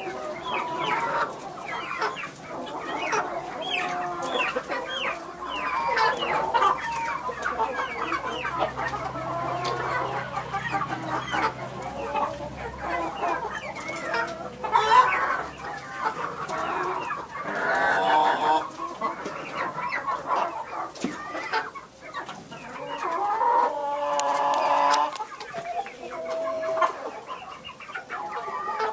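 A small flock of Leghorn chickens clucking continuously while foraging, many short overlapping clucks with a few louder, longer calls.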